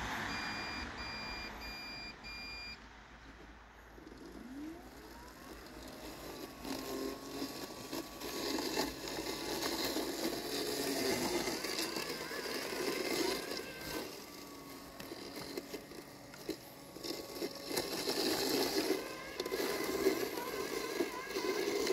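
LandXcape LX790 robotic lawn mower: four short electronic beeps in quick succession near the start, then a motor whine rising in pitch about four seconds in. After that come its motors and cutting blade running as it drives and turns through tall, wet grass, growing louder and more uneven.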